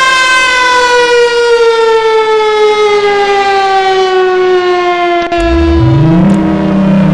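Electromechanical outdoor warning siren winding down, its tone falling slowly and steadily in pitch. After an abrupt break about five seconds in, a low tone starts and quickly rises to a steady pitch.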